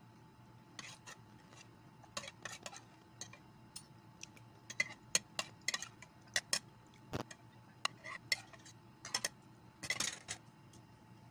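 Metal spoon tapping and scraping on a dish while someone eats: irregular light clicks, with a close cluster about ten seconds in.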